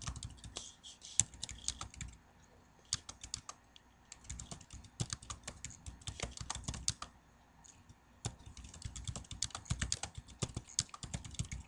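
Typing on a computer keyboard: rapid key clicks in quick runs broken by short pauses.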